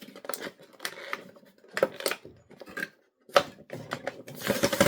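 Action-figure packaging being handled and pried open: irregular plastic clicks and knocks, with a rustle of packaging near the end.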